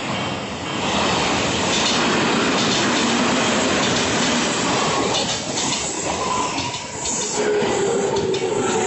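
Odakyu Line electric commuter train passing close by at speed, a loud steady rush of wheels on rail. A steady whining tone joins in during the second half.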